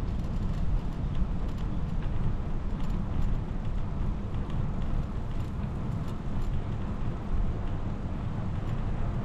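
Ride noise of a bicycle rolling along a smooth asphalt bike lane: a steady, low, fluctuating rumble of wind buffeting the microphone and tyre noise, with faint scattered ticks.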